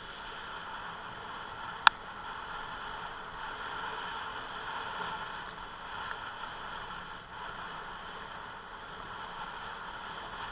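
Steady running and road noise from a ridden Yamaha Mio J motor scooter, with one sharp click about two seconds in.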